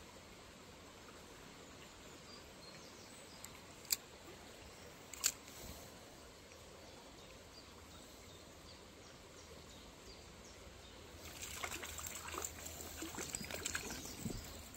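Creek water trickling steadily, with two sharp clicks about four and five seconds in. For the last few seconds a hooked fish splashes at the surface as it is brought in to the landing net.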